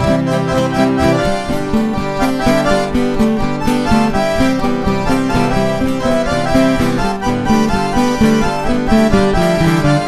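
Instrumental intro of an acoustic Brazilian moda de viola song. A free-reed instrument plays the melody in sustained notes over steadily strummed acoustic guitar, with no singing yet.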